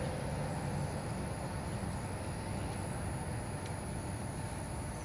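Steady outdoor background noise: a low rumble with a faint, even high-pitched insect drone over it, and no distinct event.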